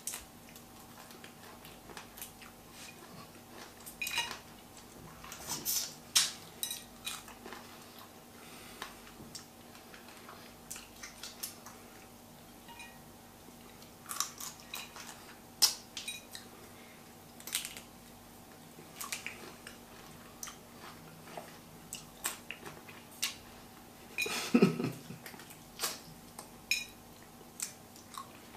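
Boiled crayfish being shelled by hand and eaten: irregular cracks and snaps of the shells, small clicks and chewing, with the loudest, longest of these sounds near the end. A faint steady hum runs underneath.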